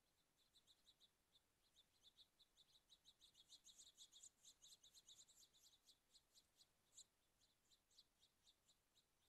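Faint, rapid short chirps from several small birds, several a second, building to a dense chatter in the middle and thinning out toward the end.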